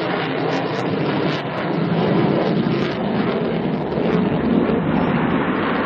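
Jet engines of a twin-engine Sukhoi Flanker-family fighter, a loud steady rushing noise from a low-flying jet, swelling a little about two seconds in.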